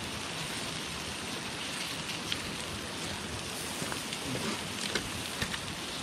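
Wood campfire crackling: a steady hiss with a few sharp pops scattered through it.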